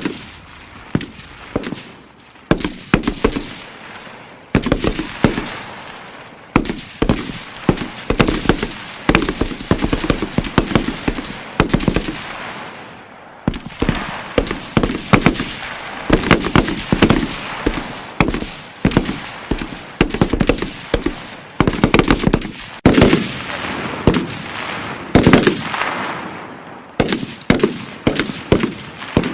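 M16 assault rifle firing: a few separate shots at first, then repeated rapid strings of several shots a second, each shot trailing off in echo.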